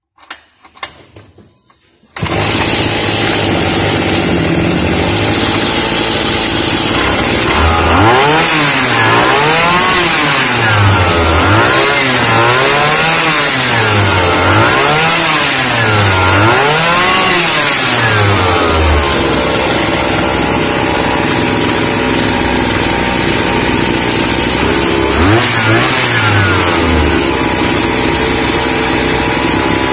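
Chinese brush cutter's small two-stroke engine catching about two seconds in and running steadily at high speed, revved up and down about five times in a row, then once more near the end. It is running again after its broken engine block half was replaced.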